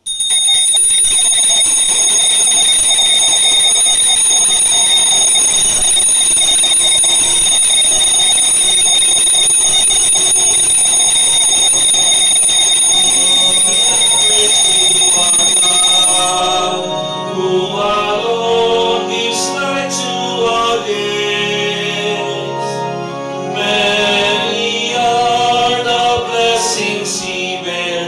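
A steady, high-pitched ringing tone for about sixteen seconds, then an entrance hymn begins: voices singing over instrumental accompaniment.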